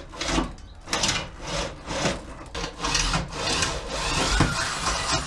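Metal tool scratching back and forth on a truck's sheet-steel firewall, marking where the brake booster's bolt holes will be punched: rough scraping strokes about two a second.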